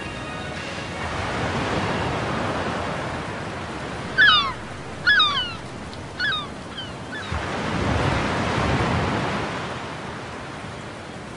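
Surf washing in slow swells, rising and falling twice. About four to seven seconds in come four short calls that each fall in pitch, the first two loudest.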